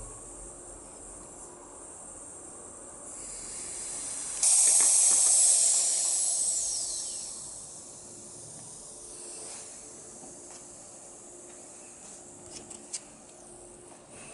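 MyPressi handheld gas-powered espresso maker releasing its pressurising gas at the end of a shot: a faint hiss grows about three seconds in, then a sudden loud hiss with a falling whistle dies away over a few seconds. A few light clicks follow near the end.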